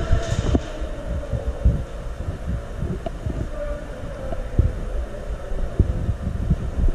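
Irregular low thuds and rumble from movement and handling against a body-worn camera, over a faint steady hum.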